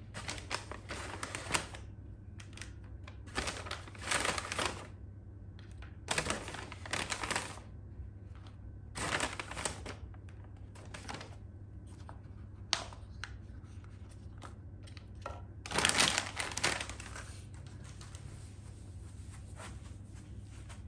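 Brown paper bag rustling and crinkling in repeated bursts as food is taken out of it, the loudest burst about three-quarters of the way through, with a single sharp tap about midway. A low steady hum sits underneath.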